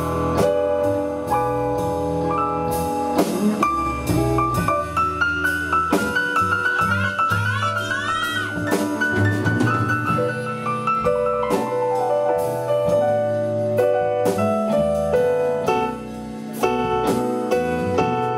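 Live blues band playing an instrumental passage with piano and drums, and a lead instrument bending its notes about six to nine seconds in.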